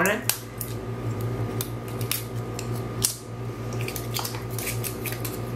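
Hands handling a roll of washi tape and its clingy plastic wrapping: scattered light clicks and crinkles, over a steady low hum.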